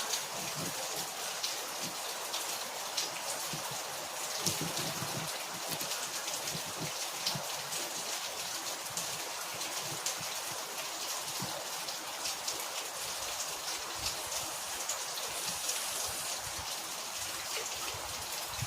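Steady rain falling, with many separate drops ticking sharply over an even hiss.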